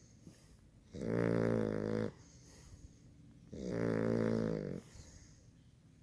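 Sleeping puppy snoring: two loud snores of about a second each, a couple of seconds apart, with quiet breathing between them.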